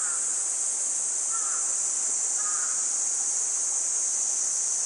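A steady, high-pitched chorus of insects droning without a break, with a bird giving three short calls in the first three seconds.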